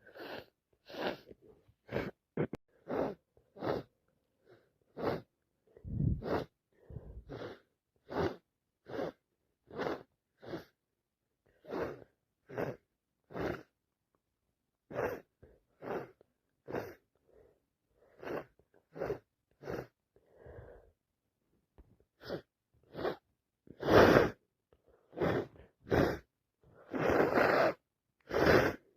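A person with a heavy head cold sniffing over and over through a blocked, runny nose, short sharp sniffs at roughly one a second. Near the end come a few louder, longer bursts.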